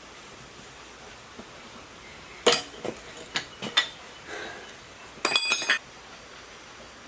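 Hard metal objects clinking together: several sharp clinks, then a brief ringing metallic clatter about five seconds in.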